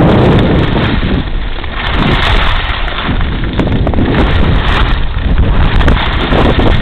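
Wind rushing and buffeting over the microphone while skiing downhill, heaviest in the low rumble, with skis scraping over packed snow.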